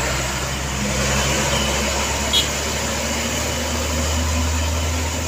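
Diesel truck engine running with a steady low rumble that swells about four seconds in, as heavy traffic moves at a railway crossing. A brief high chirp comes about halfway through.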